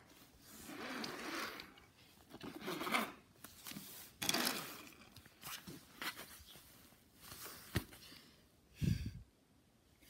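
Toy cars being pushed and handled on a fabric play mat: several bursts of rubbing and scraping, a few light clicks, and a dull thump near the end.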